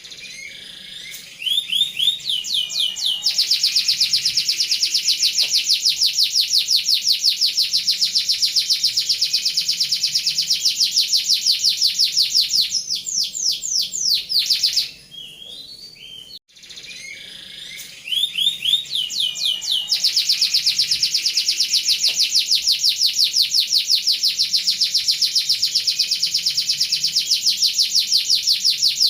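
Domestic canary singing its rolling song: long, very rapid trills of repeated high notes, with shorter varied phrases between them and a brief break about halfway through.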